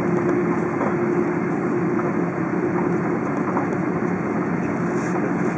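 Steady engine and air noise of an Airbus A330 taxiing, heard from inside the cabin, with a constant low hum.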